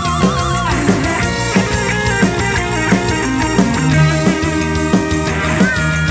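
Live rock dangdut band playing through a large outdoor PA sound system, heard from the crowd about 50 m from the stage. A drum kit keeps a steady beat of about three hits a second under a heavy bass line, and a lead melody wavers with strong vibrato near the start.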